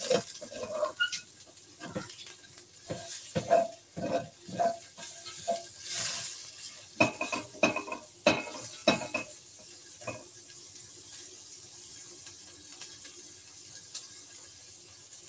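Red onions sizzling as they fry in a pan, with a utensil scraping and knocking against the pan as they are stirred. The stirring stops about ten seconds in, leaving a steady sizzle.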